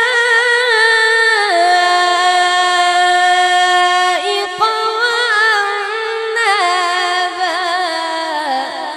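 A boy's high voice reciting the Quran in melodic tajweed style, holding long ornamented notes on a single breath, with a brief break about four seconds in. It stops shortly before the end and leaves an echoing tail from the sound system.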